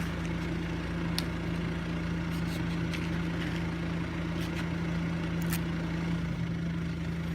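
An engine running steadily at a constant pitch, with a few sharp pops from the wood fire.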